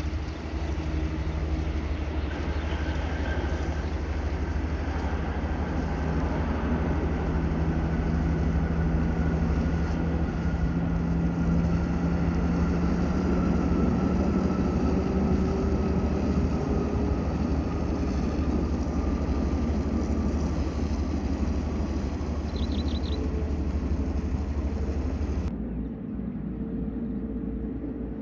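A twin-engine widebody jet airliner on the runway or passing close by: a steady heavy rumble with an engine whine that slowly falls in pitch. Near the end the sound changes abruptly.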